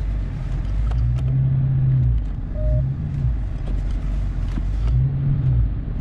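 Supercharged 6.2-litre V8 of a 2020 Dodge Charger Daytona Hellcat running, a deep low rumble heard from inside the cabin, its note swelling three times.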